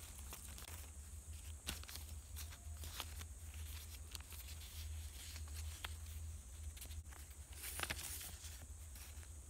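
Faint rustling and crinkling of recycled paper scraps and small cards as they are handled and sorted, with a few sharper crinkles, the strongest near the end, over a steady low hum.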